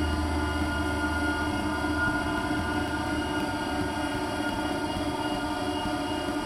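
Electronic drone from a live ambient/noise set: layered steady synthesizer tones over a noisy bed, with a deep bass tone that fades out in the first couple of seconds and no beat.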